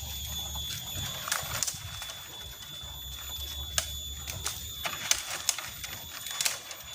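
Scattered sharp snaps and crackles of dry twigs and leaf litter, about a dozen spread unevenly over several seconds, over a steady high-pitched whine.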